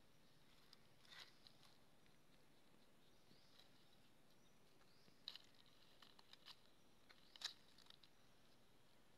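Near silence: faint ambience with a few soft, short high clicks, about a second in, about five seconds in and about seven and a half seconds in.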